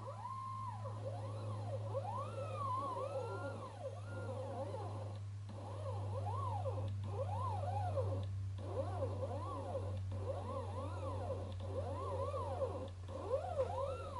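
Stepper motors driven by a GRBL shield on an Arduino Uno, whining in repeated rising-and-falling pitch sweeps as they speed up and slow down through test moves, over a steady low hum.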